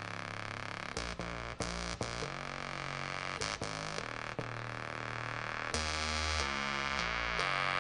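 Novation Ultranova synthesizer playing a preset: a dense, sustained electronic patch with a run of notes and sharp note attacks, growing brighter and louder about three-quarters of the way through.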